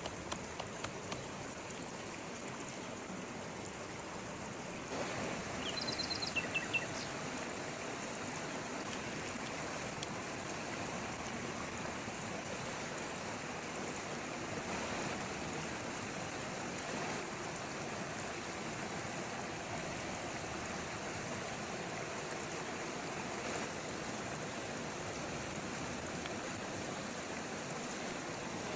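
Stream water flowing steadily. A few brief high chirps and clicks come about six seconds in.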